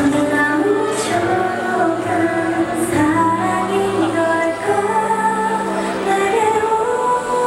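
K-pop song with female group vocals and backing track played over a concert sound system in a gymnasium.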